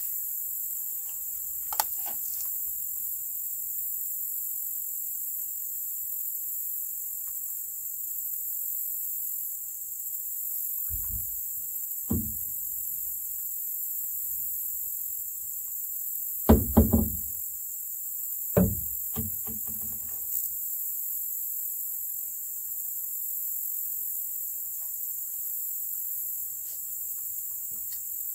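Steady, high-pitched chorus of insects droning without pause, with a few dull knocks in the middle, the loudest three a little past halfway, from the canoe paddle striking the canoe during strokes.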